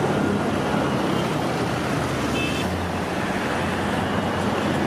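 Steady city traffic noise, an even hum of road vehicles, that cuts off just after the end.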